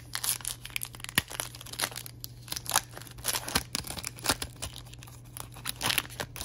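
Foil wrapper of a trading card pack being torn open and crinkled by hand: a run of irregular crackles and rustles as the wrapper is pulled off the cards.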